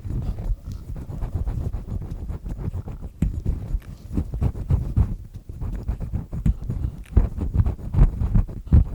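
Black triple-disc earpick scraping close to the microphone in quick, irregular grinding strokes, a dense rubbing and crackling that is strongest in the low range, with louder scrapes near the end.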